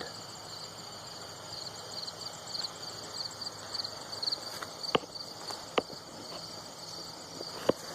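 Insects chirping outdoors, a high, steady train of rapid pulses, with a few sharp clicks in the second half.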